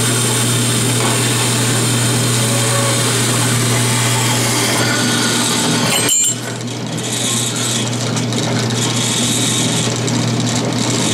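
Vertical metal-cutting bandsaw running with its blade cutting through thin sheet steel. About six seconds in the blade breaks through and the sound drops to the saw running more lightly.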